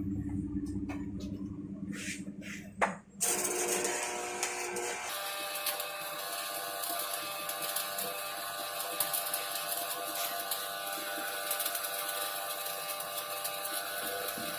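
Stick (shielded metal arc) welding on carbon steel pipe. After a sharp snap about three seconds in, the arc strikes and runs on with a steady crackling buzz.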